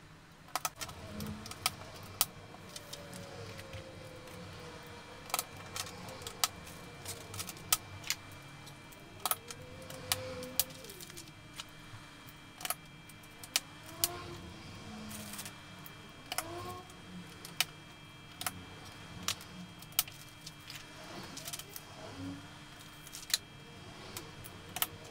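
Irregular clicks and light clatter of small plastic electrical parts, relay sockets and terminal blocks, being handled, pulled from a plastic bag and set down on a steel worktable and into a control panel.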